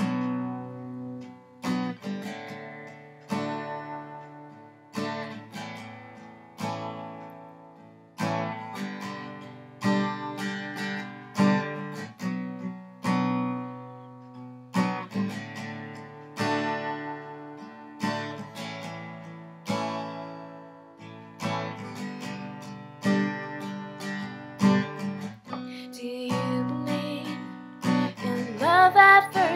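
Acoustic guitar playing the slow instrumental intro of a ballad: chords struck about every second and a half, each left to ring and fade. A brief sung note comes in near the end.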